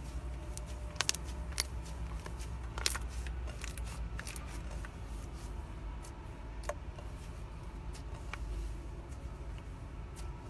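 Thick white slime being stretched, folded and squished by hand, giving small sticky pops and crackles. A few sharper pops come in the first three seconds, over a steady low hum.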